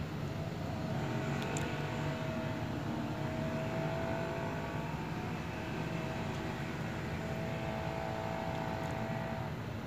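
Steady engine drone with a faint whine that holds its pitch and fades out near the end.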